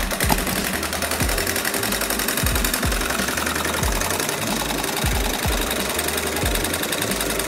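Home-built tin-can Stirling engine running, its wire crank and linkage making a fast, even clatter, with a low knock about twice a second.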